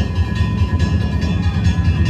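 Danjiri festival music: taiko drums beating in a quick, dense rhythm under steadily ringing gongs.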